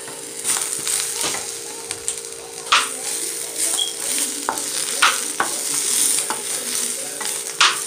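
Dried California chiles, onion and garlic sizzling as they fry in a little oil in a frying pan, with a wooden spoon stirring and scraping them around the pan and knocking against it a few times.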